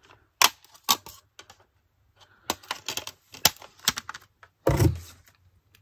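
Plastic CD cases and discs being handled: a string of sharp, irregular clicks and taps, with a heavier knock about five seconds in.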